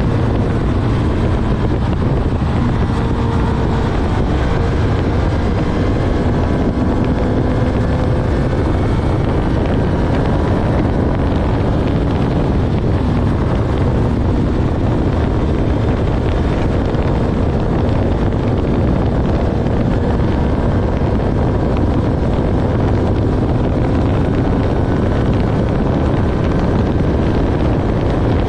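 Honda CB1000R's inline-four engine running under way at a fairly steady speed, its note drifting gently up and down, with heavy wind rush on the microphone.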